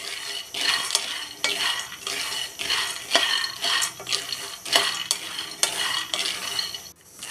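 Raw peanuts being dry-roasted in a kadai, stirred with a wooden spatula: the nuts rattle and scrape against the pan in regular sweeps about twice a second, with a brief pause near the end.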